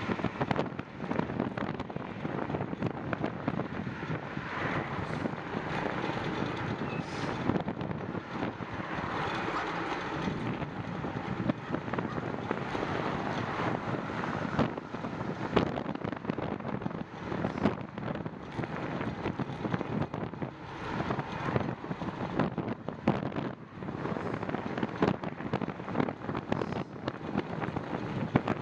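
Wind rushing and buffeting over the microphone on a moving bicycle: a continuous rushing with frequent short, gusty thumps.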